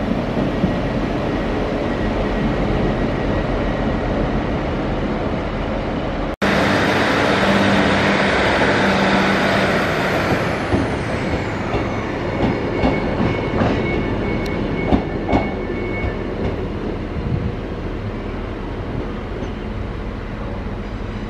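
Diesel multiple units running through a station: first a Class 197 unit's engine and wheel noise, then, after a sudden cut about six seconds in, a Class 156 Sprinter's diesel engines working hard as it pulls away. Its wheels then click sharply over rail joints and pointwork as it moves off around the curve.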